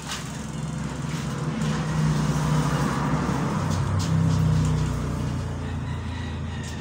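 Low engine rumble of a motor vehicle, swelling around the middle and easing off toward the end.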